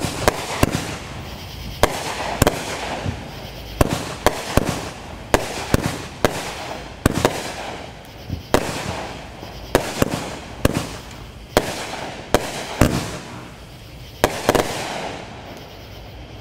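Pyro Demon "Money Grab" 16-shot 200-gram firework cake firing its shells one after another: sharp launch thumps and bursts overhead, about one a second, with hissing between. The last reports come about two seconds before the end.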